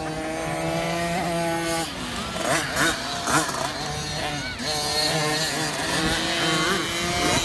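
Two-stroke engines of 50cc motocross bikes racing past. The engine note holds steady, dips and rises around two seconds in as the riders ease off and open up again, then holds steady again.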